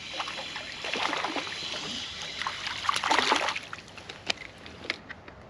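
Water splashing beside a kayak, loudest in a splash about three seconds in, with small clicks and knocks of handling on the boat.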